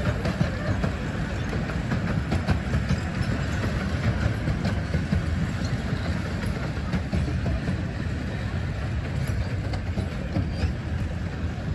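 Miniature railway carriages of a 15-inch gauge train rolling past at the platform. A steady low rumble, with the wheels clicking over rail joints again and again.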